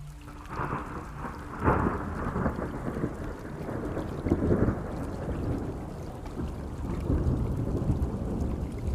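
Thunder rolling over steady rain, with a louder roll a little under two seconds in and another about four and a half seconds in.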